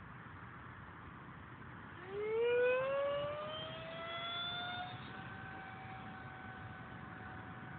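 Kyosho Tornado R/C model jet's engine spooling up: a whine rises in pitch over about three seconds, then holds steady.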